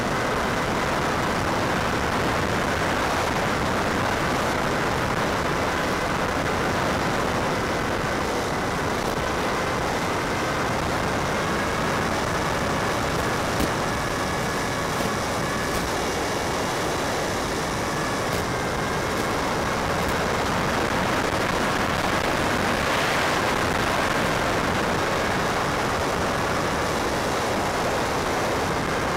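Steady rushing noise with a few faint, steady whining tones, carried on the audio channel of a 5.8 GHz FPV video link.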